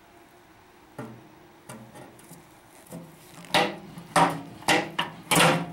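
Channel-lock pliers working a steel knockout tab in a smoker's lid back and forth to break it free: a few small clicks, then from about three and a half seconds in a run of loud metallic creaks and scrapes, about two a second, as the tab bends.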